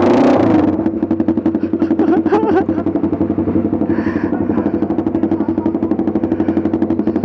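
Honda CBR150R single-cylinder engine running through an aftermarket SC Project muffler: a short, loud throttle blip right at the start, then idling with a fast, even exhaust beat.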